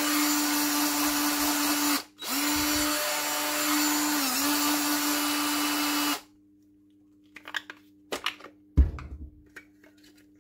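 Parkside Team X cordless drill running unloaded on a Makita LTX battery through an adapter: the motor whines steadily, stops about two seconds in, spins up again, dips briefly in speed and stops after about four more seconds. Handling clicks and a thump follow as the drill and battery are handled.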